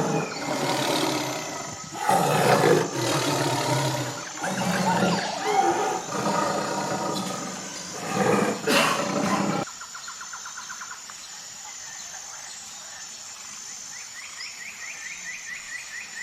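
Recorded animal roars played as sound effects in a dark ride's animated scenery: several loud, low roars one after another, cutting off suddenly about ten seconds in. Quieter rapid chirping trills follow near the end.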